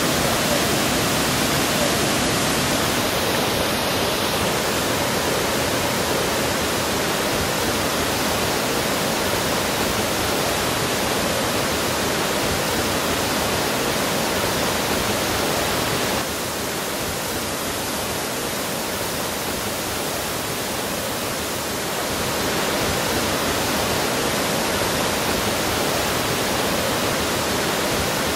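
Rain-swollen waterfalls in heavy flood: a steady, dense rush of falling and churning water, a little softer for several seconds around the middle.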